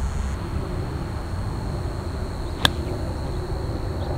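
A golf club strikes a ball out of a sand bunker: one sharp crack of club, ball and sand about two and a half seconds in. It is a less-than-full swing, heard over steady outdoor background noise.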